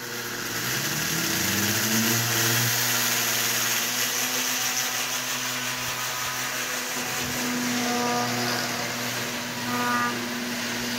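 Small electric model-aeroplane motor spinning a propeller on a toy train caboose, a rising whine as it spins up over the first two seconds, then running steadily with a hiss of moving air. A short higher squeal comes about ten seconds in.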